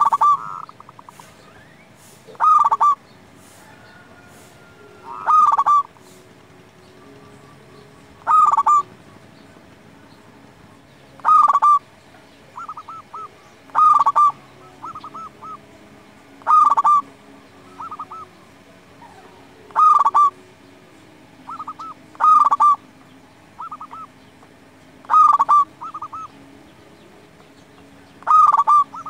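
Zebra dove (perkutut) singing its cooing song: a loud rolling coo phrase repeated about every three seconds, with softer short cooing notes between some of the phrases.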